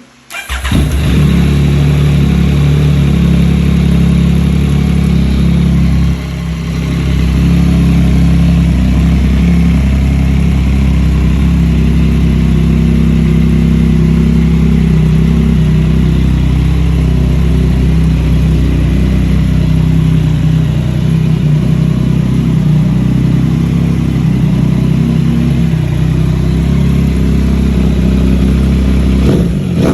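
2023 Yamaha MT-09's three-cylinder engine starting up through a Yoshimura AT2 exhaust about half a second in, then idling steadily and loud.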